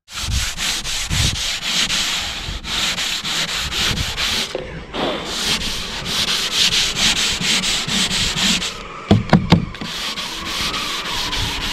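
Sandpaper rubbed by hand back and forth across a wooden tabletop, a run of steady rasping strokes with a few short pauses. About nine seconds in there is a brief cluster of louder low sounds.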